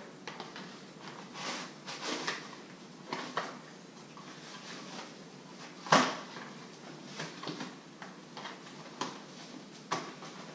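Plastic clicks, knocks and rustling as parts of a Vivo four-wheel dog stroller's frame are handled and fitted, with one sharper click about six seconds in.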